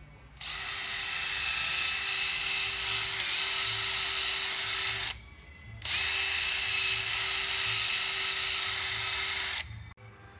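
Cordless drill spinning a cleaning brush down a passage in a bare VW Beetle engine case, in two steady runs of about four seconds each with a short pause between.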